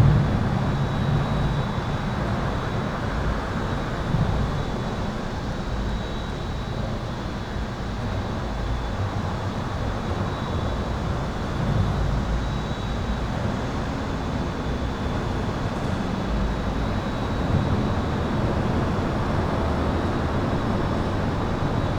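Highway traffic heard from beneath an overpass: a steady rush of tyres and engines with low rumbles that swell as heavier vehicles pass. A faint steady high-pitched tone sits above it throughout.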